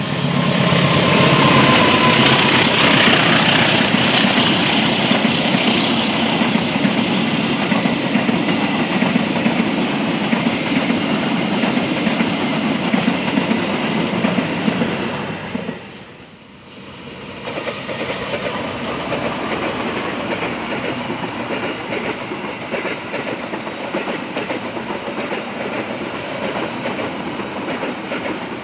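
Passenger train led by a diesel locomotive passing close by, with engine noise and the rumble and clickety-clack of coach wheels over the rails. About sixteen seconds in the sound drops away briefly, then another passenger train is heard passing, a little quieter.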